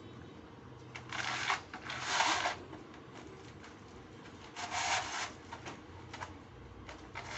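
German Shepherd puppy's paws scratching and digging at a doormat on a concrete floor, in four short scratchy bursts of about half a second each.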